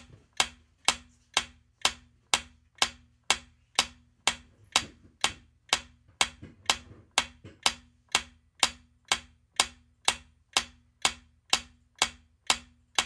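Countdown-timer sound effect ticking steadily, about two sharp ticks a second.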